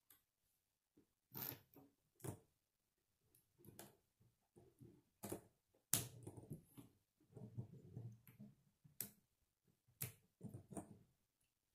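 Plastic K'nex rods and connectors clicking and rattling as they are handled and snapped together: a string of faint separate clicks and knocks, the sharpest about six seconds in, with plastic rubbing between them.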